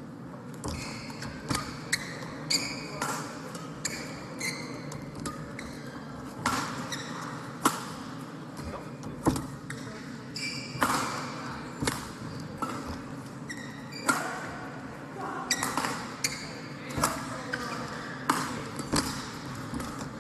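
Badminton rally: rackets striking the shuttlecock again and again, with short squeaks of shoes on the court floor between the hits.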